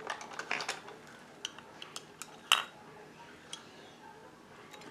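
Makeup pencils clicking and tapping against a clear plastic organizer as they are set into its holes: a scatter of light clicks, the loudest about two and a half seconds in.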